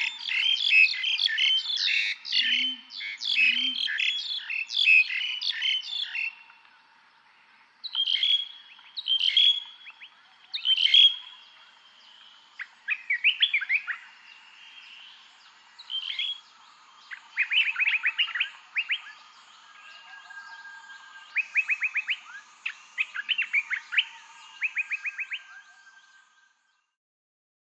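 Birds chirping and calling: a dense burst of rapid chirps with a few low hoots beneath, then scattered single calls and several quick trilled runs, stopping shortly before the end.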